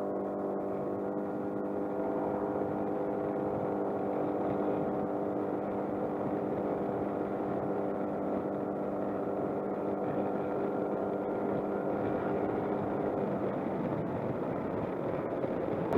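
Suzuki Burgman 200 scooter's single-cylinder engine running at a steady cruise, with wind and road noise. About thirteen seconds in, the engine note fades, leaving mostly wind and road noise.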